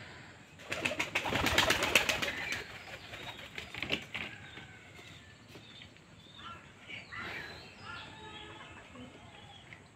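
A bird's wings flapping hard in a rapid burst lasting about two seconds, a few more flaps about four seconds in, then a few short bird calls in the second half.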